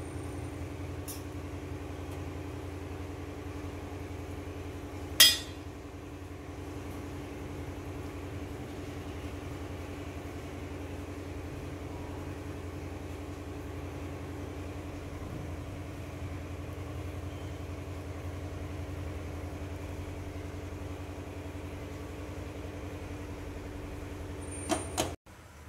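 A steady low mechanical hum, with one sharp knock about five seconds in and a few light clinks on the metal steamer plate near the end.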